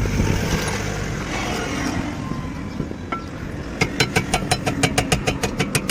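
Rapid metal-on-metal tapping, about five strikes a second, starting about four seconds in, as a seized brake caliper guide pin is worked free; before it a rasping scrape, with a low steady rumble underneath throughout.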